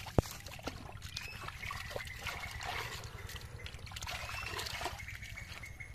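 Hands sloshing and splashing through shallow muddy water in a dug pit while feeling for eels, with irregular small splashes and dribbles. A single sharp knock just after the start is the loudest sound.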